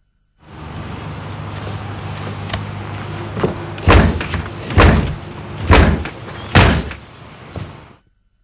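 Four heavy thuds on a front door, a little under a second apart, with lighter knocks around them, over a low steady hum.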